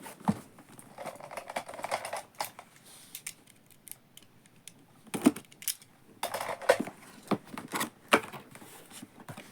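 Hands unpacking a small plastic robot vacuum from its packaging: scattered sharp clicks and knocks of plastic parts, with stretches of scraping and rustling about a second in and again near the six-second mark.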